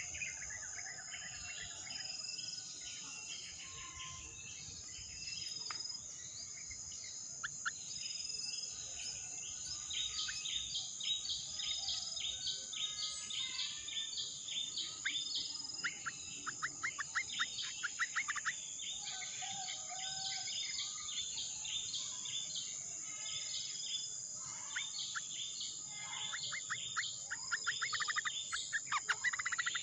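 Birds chirping and trilling in many short, quick calls over a steady high-pitched insect drone; the calls grow busier partway through and again near the end.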